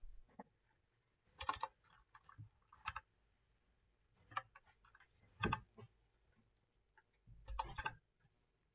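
Computer keyboard keys being tapped, in a few short clusters of clicks with pauses between them.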